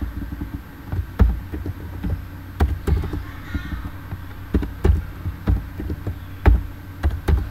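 Computer keyboard typing: irregular keystrokes, each a sharp click with a dull thump, over a low steady hum.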